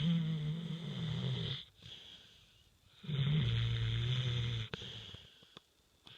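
A dog snoring in deep sleep with its tongue hanging out. There are two long, low-pitched snores about three seconds apart, with quieter breaths between them.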